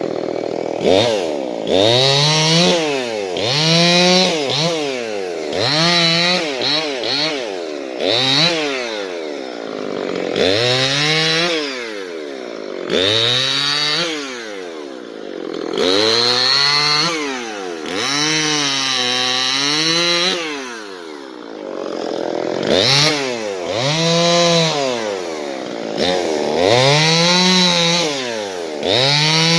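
Gas chainsaw being revved up and let drop back over and over, roughly every two seconds, as it cuts felled tree trunks into firewood blocks. About two-thirds of the way through it holds at speed longer, dipping in pitch through a longer cut.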